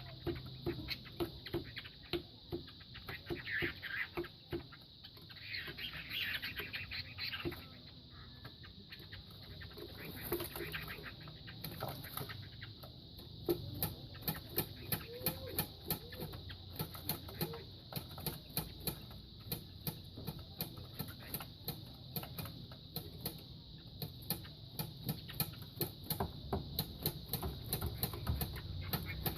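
Two gamecocks fighting: many quick knocks and flurries of wing-flapping as the birds strike at each other. A few short clucks and calls come in early on.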